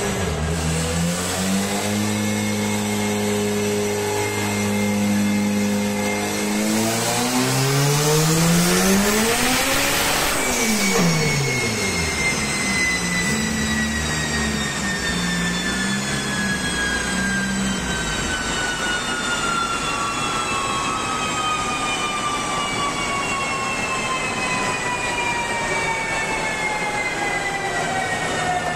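A tuned hatchback's engine running on a chassis dynamometer. It holds a steady speed, then revs hard and climbs for about three seconds in a full-throttle pull before the throttle is lifted. A high whine then falls slowly for many seconds as the dyno rollers and drivetrain coast down.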